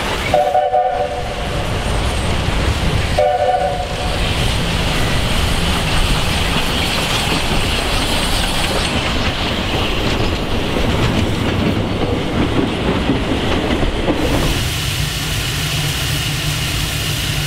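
South African Class 19D steam locomotive sounding its whistle twice in short blasts, then running past with its train, the wagon wheels clattering over the rail joints.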